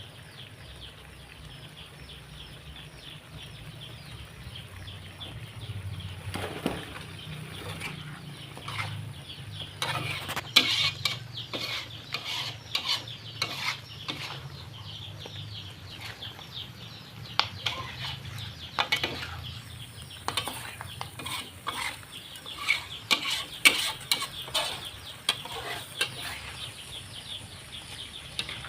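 A pan of chicken in soy-sauce seasoning being stirred with a spatula: irregular scrapes and knocks against the pan, starting about six seconds in, over a constant fine crackle from the cooking sauce.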